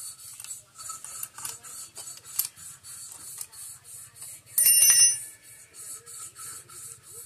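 Small metal clicks from hand work on a scooter's rear wheel, then one loud metallic clang a little past halfway that rings for about half a second. Throughout there is a steady, fast, high-pitched pulsing, about four pulses a second.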